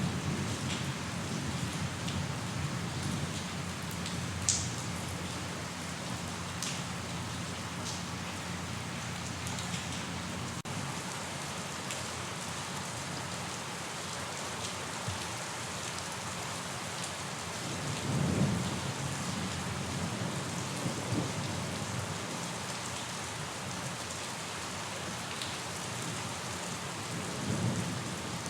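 Steady heavy rain falling, with a few sharper drips and low rolls of distant thunder, the clearest about two-thirds of the way through and another near the end.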